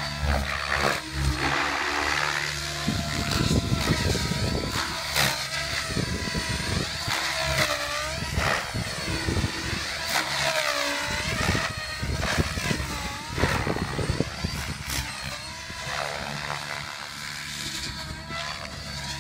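Compass Chronos radio-controlled helicopter flying 3D aerobatics, its motor and rotor whine rising and falling in pitch again and again as it swoops and passes.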